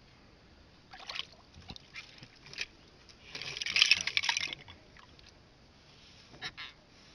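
Freshly caught catfish croaking in hand: short bursts of rapid, raspy clicks, with the longest and loudest lasting about a second in the middle.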